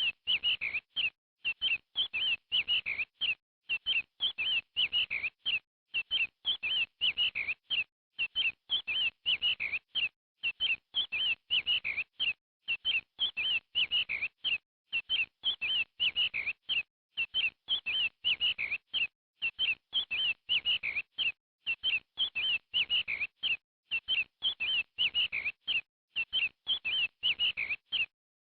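Chicks peeping: short high chirps in quick groups separated by brief silences, the same pattern repeating about every two seconds as a loop.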